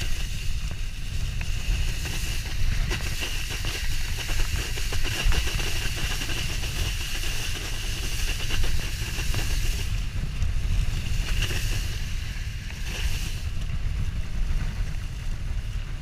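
Wind buffeting a GoPro's microphone as a wakeboard is towed across lake water, with a steady rumble and the continuous hiss of the board's spray.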